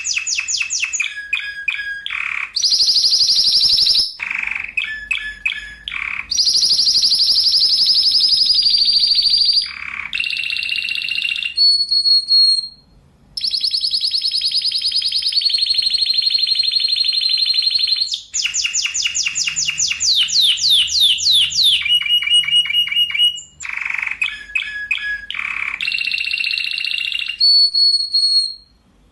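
Spanish Timbrado canary singing tight rolls: runs of rapid repeated notes held for several seconds at a time, changing from one tour to the next, broken by brief pauses.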